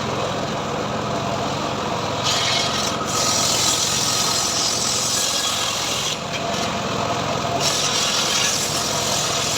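Homemade engine-driven sawmill running steadily while its blade cuts through teak, with a hissing cutting sound that starts about two seconds in, breaks off briefly past the middle, then picks up again.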